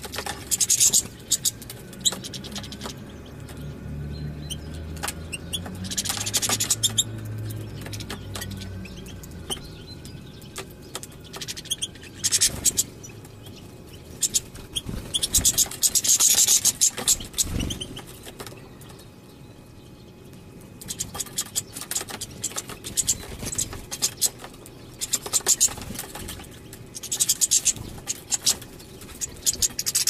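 European goldfinches at a seed feeder: loud bursts of rapid high twittering and clicking every few seconds as the birds jostle over the seed.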